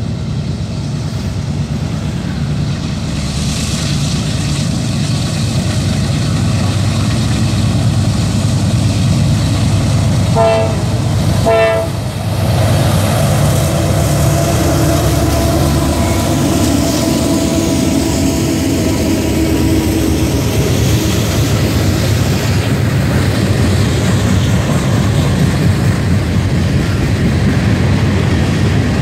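Diesel freight locomotives rumbling as they approach and pass, with two short horn blasts about ten seconds in. The loaded tank cars then roll by.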